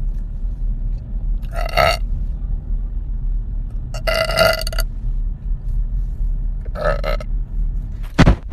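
A woman burping: three long, loud burps a couple of seconds apart, then a short sharp one near the end, over a steady low rumble.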